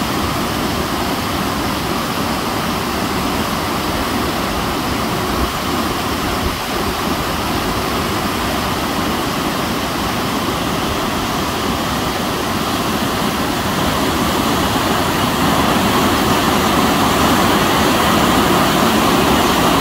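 Water pouring over a concrete dam spillway and churning at its foot: a steady, loud rush that grows louder about two-thirds of the way through.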